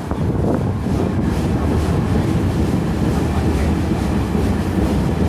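A train running on the rails, a loud steady rumble.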